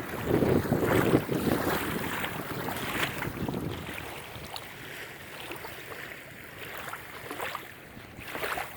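Wind blowing across the microphone over waves washing onto the beach, loudest in the first three seconds and then easing off.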